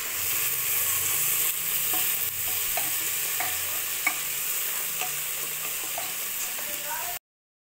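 Sliced onions sizzling in hot oil in a pressure cooker, stirred with a spoon that knocks lightly against the pot. The sound cuts off suddenly near the end.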